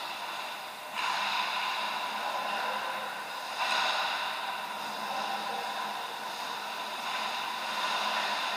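Ice hockey rink ambience: a steady, noisy hiss with no speech, stepping louder about a second in and again near four seconds.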